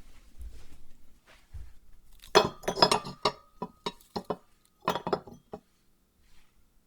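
Tableware being set out by hand: faint handling rustles, then a run of sharp clinks with a brief ringing tone about two seconds in, a few lighter clicks, and a second short run of clinks about five seconds in.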